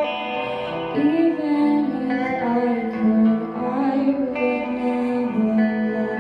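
Music: guitar with a singing voice.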